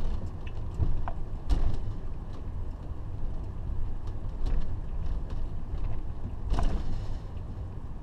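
Fleetwood Flair Class A motorhome driving, heard from inside: a steady low engine and road rumble, with a few knocks and rattles, the loudest about a second and a half in and near the end.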